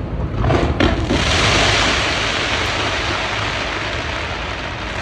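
Fireworks: a few sharp bangs just under a second in, then a dense crackling hiss that slowly fades.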